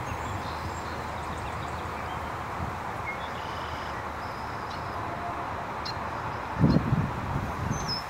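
Wind blowing through tall grass, a steady rustling hiss, with faint short bird chirps scattered over it. About two-thirds of the way through, a gust buffets the microphone with a brief low rumble, the loudest moment.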